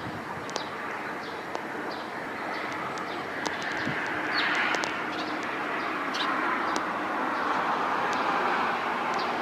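Jet airliner engines, an Airbus A320's IAE V2500 turbofans, heard as a broad roar that slowly grows louder as the aircraft approaches. Short bird chirps come and go over it.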